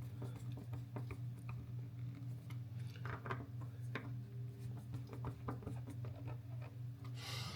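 Steady low electrical hum, with a few faint clicks and taps of parts and tools being handled.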